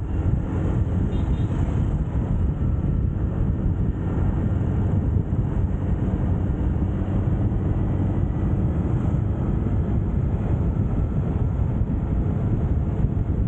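Motor scooter riding at a steady speed: a constant engine drone mixed with low wind rumble on the microphone.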